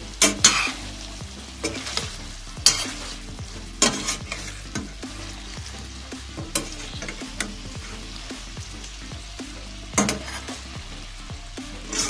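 Metal spoon stirring cubes of beef in a steel pot, the meat sizzling in its fat and the last of its juices. The spoon knocks and scrapes against the pot now and then, sharpest in the first few seconds and again about ten seconds in.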